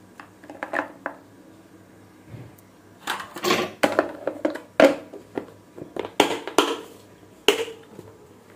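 Sprouted chickpeas rattling into a plastic storage box, then the box's plastic lid pressed on and its clip-lock flaps snapped shut, a series of sharp plastic clicks and knocks.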